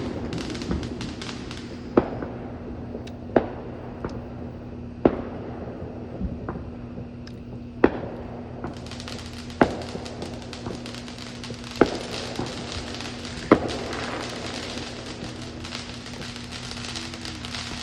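Fireworks going off: a string of sharp bangs about every one to two seconds, with crackling between them.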